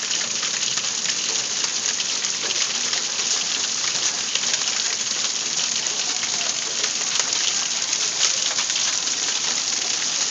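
Hailstorm: hail and rain pelting a wooden deck and patio furniture in a dense, steady patter of countless small hits.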